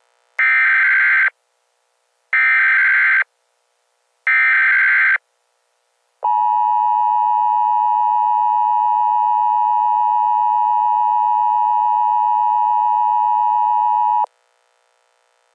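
Emergency Alert System signals: three short SAME header data bursts about two seconds apart, then the steady two-tone EAS attention signal held for about eight seconds before cutting off sharply.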